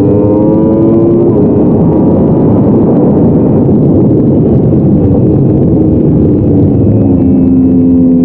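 Yamaha R1 inline-four sportbike engine at full throttle, heard from a camera on the bike: the engine note climbs for about the first second. A loud rushing noise then nearly hides the engine's tone, and near the end the engine note comes back and falls slightly as the bike reaches a corner. The engine is being run in.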